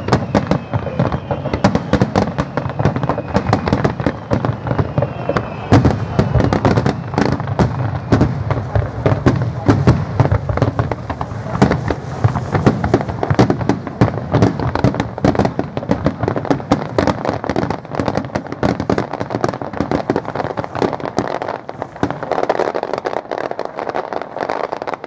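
Fireworks display: a continuous barrage of aerial shells bursting, with many bangs a second overlapping and no pause.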